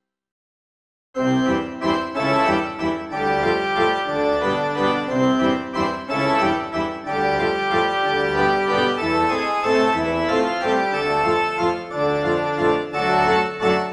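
Background music: an upbeat organ-like keyboard tune that starts suddenly about a second in, after a moment of silence.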